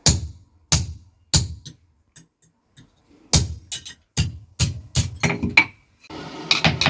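Hammer blows on steel at a blacksmith's anvil, each strike ringing briefly. There are four blows, a short pause, then a quicker run of about eight.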